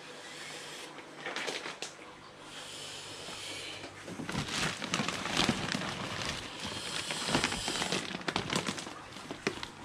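Plastic fish bags rustling and crinkling as they are handled, with scattered clicks and knocks.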